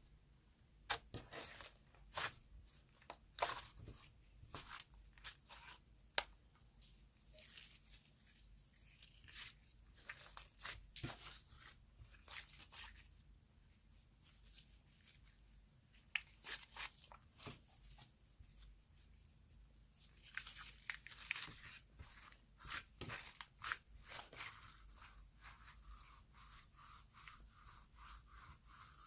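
Soft clay slime being stretched and squished by hand: irregular sticky crackles, pops and tearing sounds as it pulls apart and presses together, with a few quieter pauses.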